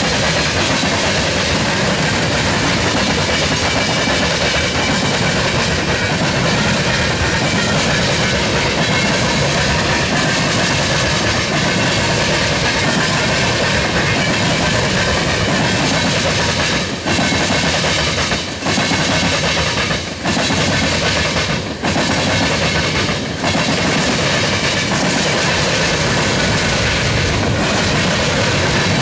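A freight train's tank cars and covered hoppers rolling past, with a steady noise of steel wheels on the rails. The noise drops briefly a few times about two-thirds of the way through.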